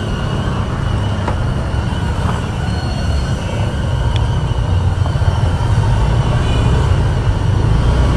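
Steady low rumble of wind on the microphone and tyre noise from an e-bike rolling along a paved street.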